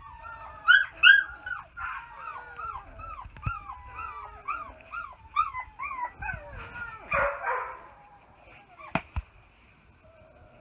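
Puppy whimpering in a quick run of short, high, falling yips, about two a second, that die away about six seconds in. A brief scuffling rustle follows, then two sharp clicks.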